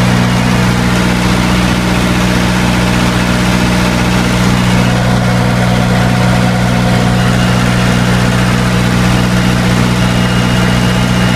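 Naturally aspirated four-cylinder diesel engine of a 30 kW standby generator running steadily at governed speed, a constant low drone with no change in pitch or level. It is carrying the load of the greenhouse heater blower motors.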